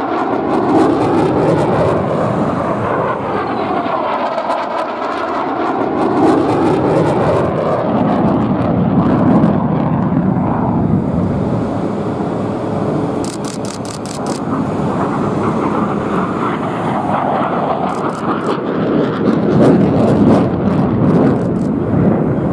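Jet noise of an F-35A Lightning II's single afterburning turbofan as the fighter flies past, a continuous loud rumble with a sweeping, phasing quality in the first few seconds and swelling louder twice.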